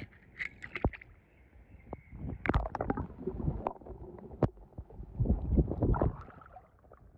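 A small die-cast toy car clicks on the stone edge of a swimming pool, then goes into the water with a splash about two and a half seconds in. Later come muffled, gurgling underwater water sounds.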